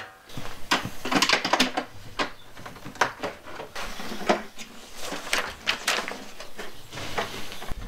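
Irregular clicks, knocks and clatter of hard plastic parts being handled: the black plastic trim pieces of a Norcold RV refrigerator door being taken off and fitted while the door is reversed.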